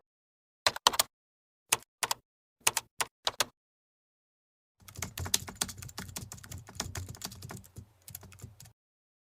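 Computer keyboard typing: a few separate key clicks in three small groups, then about four seconds of fast continuous typing that stops abruptly.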